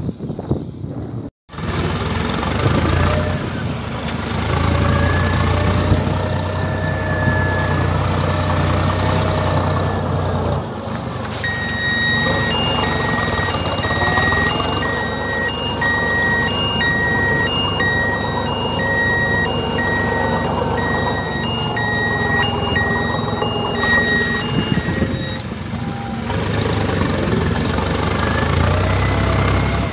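Massey Ferguson 5710 tractor's diesel engine running steadily while it pulls a 28-disc intermediate disc harrow, heard from the tractor. From about twelve seconds in to about twenty-five seconds, an electronic beeper sounds repeatedly, a little more than once a second.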